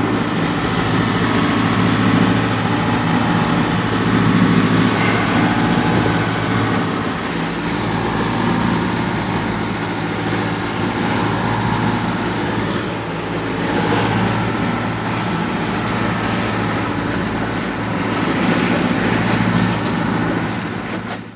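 Engine of a 36-foot Coast Guard motor lifeboat running steadily under way, a constant low hum, mixed with wind and the rush of choppy water against the hull.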